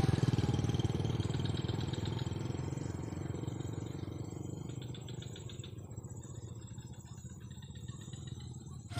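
Motorcycle engine running, its sound fading gradually as the bike moves away.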